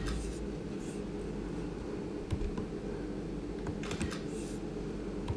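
A few soft computer keyboard clicks over a steady low room hum, with a short camera-shutter sound of a Mac screenshot about four seconds in.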